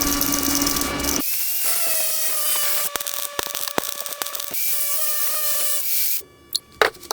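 A power tool running with a steady whine. It comes in edited pieces with a change of sound about a second in, scattered clicks, and a brief drop-out near the end.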